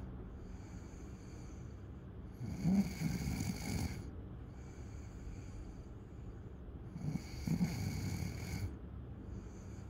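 Snoring in slow, regular breaths: two louder snores, each about a second and a half long, come about two and a half seconds in and again about seven seconds in, with softer breathing between.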